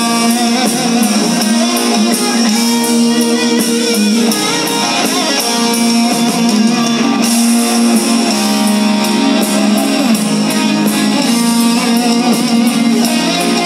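Rock band playing live at concert volume: electric guitars holding sustained notes over a steady drum beat.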